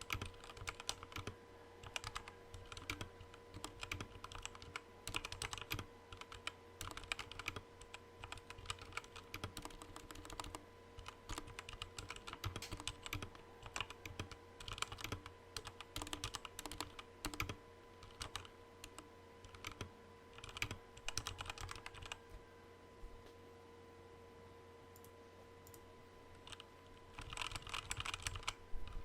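Typing on a Redragon K617 Fizz mechanical keyboard, a quick, uneven run of key clacks that thins to a few scattered strokes about three-quarters of the way through, then picks up fast again near the end. A faint steady hum sits underneath.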